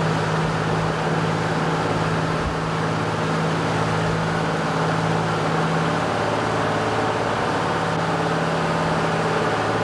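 Fishing boat's engine running steadily under way: a constant low hum with a broad rushing noise over it.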